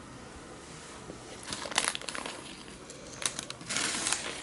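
Baking paper crinkling and rustling as it is handled, in a few short bursts: about a second and a half in, then again a little after three seconds and just before four seconds.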